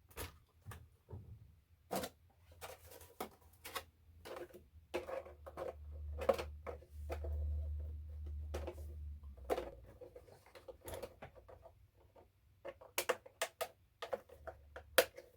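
Irregular clicks, knocks and plastic rattles as a tight-fitting plastic RC monster truck body is worked down onto its body posts, with a low handling rumble in the middle stretch.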